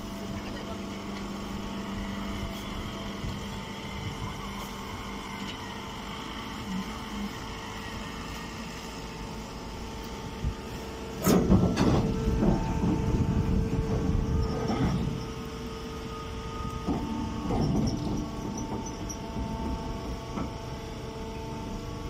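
Hydraulic rice-straw baler press running with a steady hum of several held tones. About halfway through, a louder, uneven stretch of rough noise lasts some five seconds, and a shorter one follows a little later.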